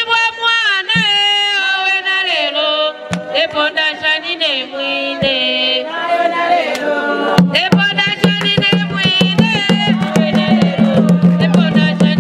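Singing of a traditional Zambian kitchen-party song, with hand-beaten drums coming in with a fast beat about seven seconds in.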